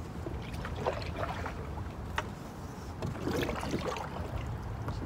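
Oars pulling a rowboat through swamp water: two strokes of splashing and dripping about two and a half seconds apart, with a single sharp knock between them, over a steady low rumble.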